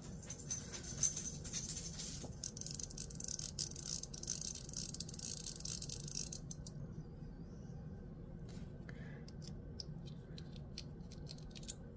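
Gao Studio Magnetic Master 2.0 haptic coin being spun or worked in the hand: a dense, fine rattling purr from its balls for about the first six seconds, then scattered light clicks.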